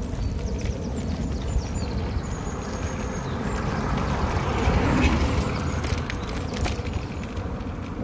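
Bicycle jolting along a concrete road, its mounted accessories rattling and clattering with the bumps over a steady low rumble of riding. Small birds chirp in the background, most clearly in the first half.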